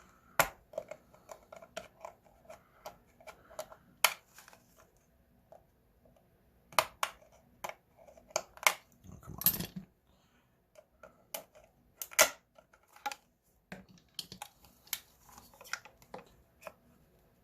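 Irregular light clicks and taps of small metal parts being handled: a padlock and small lock tools being worked by hand, with a brief louder rustle about halfway through.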